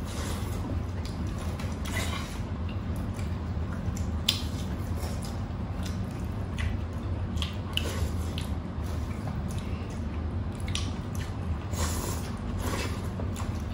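Close-up eating sounds: wet chewing, squelches and scattered sharp lip smacks as two people eat a beef bone-marrow soup with rice by hand, over a steady low hum.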